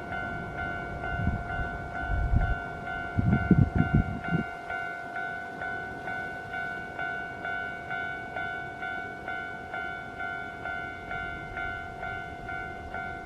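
Railway level crossing warning bell ringing in a steady repeating clang, a little under two strikes a second. For the first few seconds a train runs past with a low rumble and heavy wheel thumps, loudest about three and a half seconds in, then fades, leaving the bell alone.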